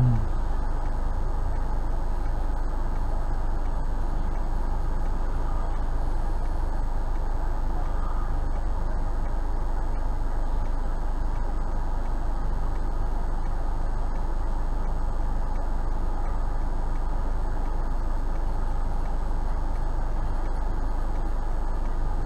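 Steady road and engine noise inside a moving car, picked up by a dashcam: an even low rumble with tyre noise that does not change.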